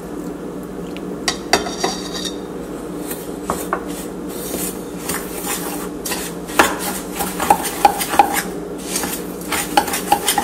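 Metal spoon stirring graham cracker crumbs and melted butter in a small stainless steel bowl, clinking and scraping against the bowl's sides. The clinks come faster and more often from about halfway through.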